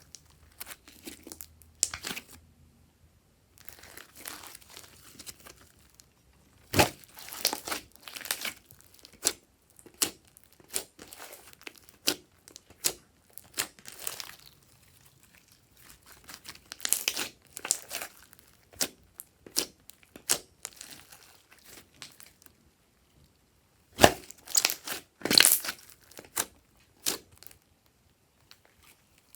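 Glossy slime being mixed and squished, making irregular wet crackling and clicking sounds with short quiet gaps between them. The loudest bursts come about seven seconds in and again about 24 to 26 seconds in.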